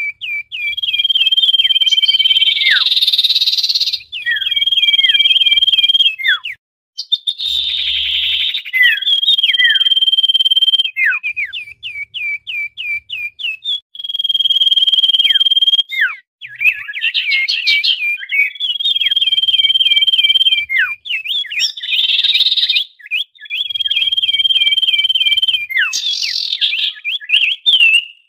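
Common iora calling busily: long level whistles alternate with quick runs of short down-slurred notes and bursts of dense chatter, the pattern coming round again every few seconds.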